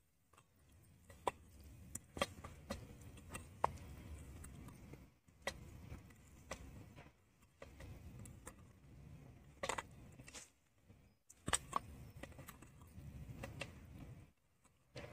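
A bare hand mixing oily, spice-coated pieces of boiled Indian gooseberry in a steel bowl: soft, faint mixing noise in stretches, with scattered light clicks of pieces and fingers against the metal.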